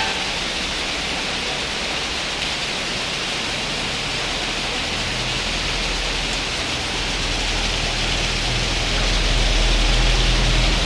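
Heavy rain falling, a steady hiss. A low rumble rises underneath from about halfway and is loudest near the end.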